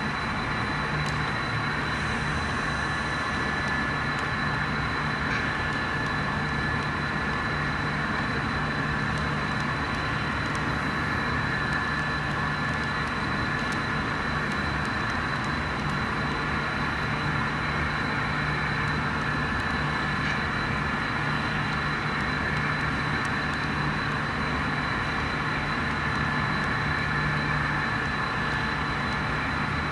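HO scale model diesel locomotive running steadily, its sound decoder giving a diesel engine rumble with a constant high whine.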